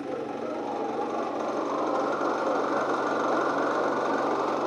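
Walk-behind rice reaper (4GL120) with its small engine running steadily under a dense, rapid mechanical rattle, growing a little louder about a second and a half in.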